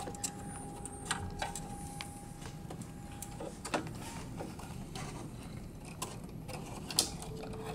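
Hands handling wiring and plastic connectors inside a printer: faint rustling with scattered small clicks and ticks, and a faint steady tone through the first three and a half seconds.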